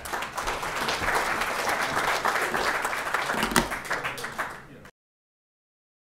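Audience applauding: a dense patter of many hands clapping that tails off a little, then cuts off abruptly about five seconds in.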